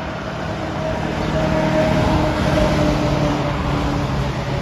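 School bus driving past on a road, its engine running under tyre and traffic noise; the sound swells gradually to a peak around halfway through and then eases off.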